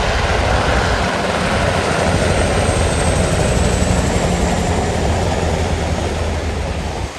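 Helicopter flying overhead: a steady, loud rotor and engine drone with a faint high whine that slowly drops in pitch as it passes.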